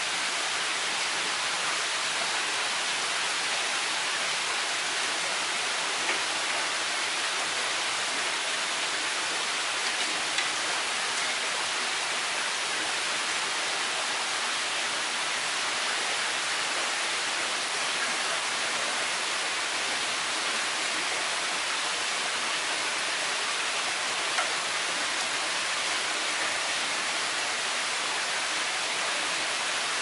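A steady rushing hiss throughout, with three faint knife taps on a wooden cutting board as a raw greenling fillet is sliced for sashimi.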